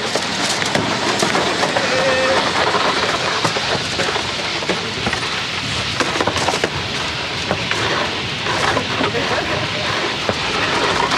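Wooden runners of a Monte wicker toboggan sliding fast down an asphalt street: a steady rough scraping hiss with scattered small clicks and knocks.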